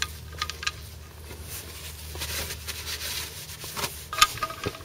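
Ratchet wrench clicking a few times near the start and again near the end as the oil-pan drain plug is screwed back in, with scraping handling noise between.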